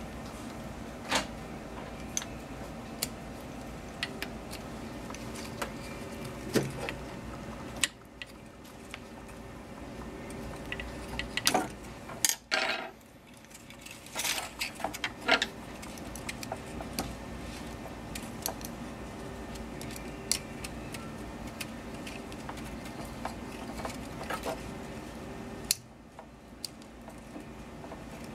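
Scattered small clicks and taps of a metal pick against the plastic fittings of a DTG print head as ink lines are worked loose, busiest a little under halfway through, over a steady hum.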